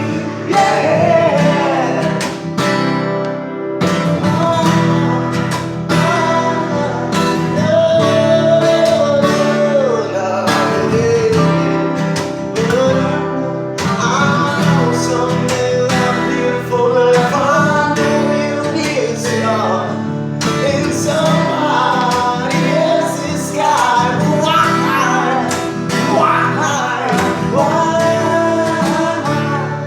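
Acoustic guitar strummed steadily, with a voice singing a wavering melody over it.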